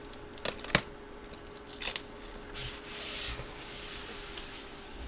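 Two sharp clicks, then a stretch of soft rubbing and sliding as paper or plastic packaging is handled.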